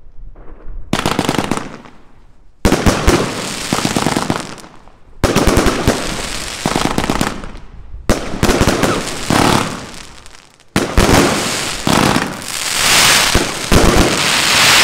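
A 112-shot fireworks compound cake firing in volleys: five dense runs of rapid bangs and crackling, each a couple of seconds long, starting about every two and a half seconds.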